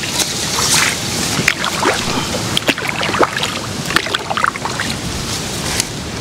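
Small boat being paddled: water splashing and short knocks against the hull, irregular throughout, over a steady rush of wind on the microphone.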